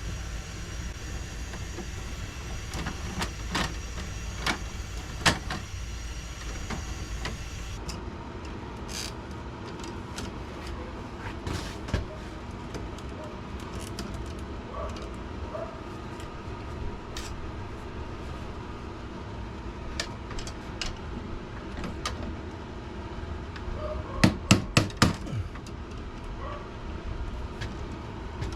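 Scattered clicks and knocks of hand work on wiring and metal panel parts, with a quick run of about five sharp knocks near the end.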